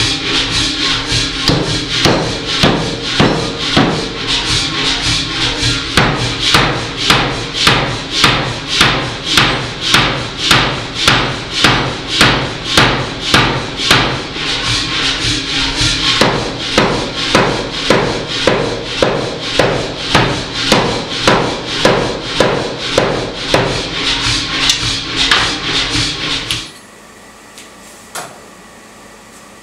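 Power hammer striking a glowing piece of thick rebar held in tongs: a steady run of heavy blows, about two a second, over the machine's steady hum. The hammering stops abruptly near the end.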